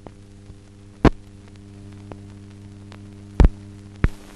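Steady electrical mains hum on an old newsreel soundtrack, broken by three loud clicks: one about a second in and two close together near the end.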